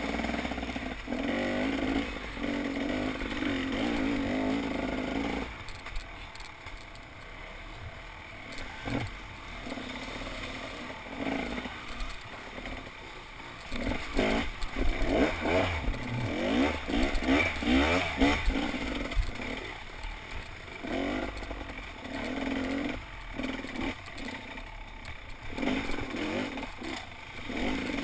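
Enduro dirt bike engine, heard from the rider, running steadily at first, easing off, then revving up again and again with rising pitch around the middle as the bike accelerates along a rough trail. Rattling and scraping of the bike over rough ground runs underneath.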